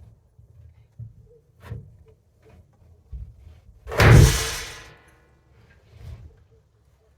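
A heavy log being hoisted with rope and a rigging block knocks and bumps, with one loud bang about four seconds in that rings for about a second.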